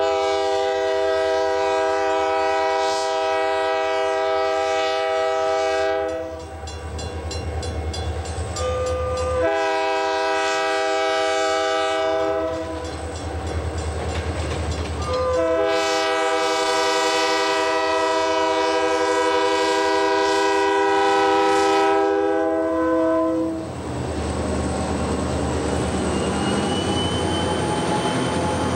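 CP Rail diesel locomotive's multi-note air horn blowing three long blasts, with a brief toot before the second and third, as the train approaches. After the horn stops, near the end, the locomotive's diesel engine and wheels rumble past close by.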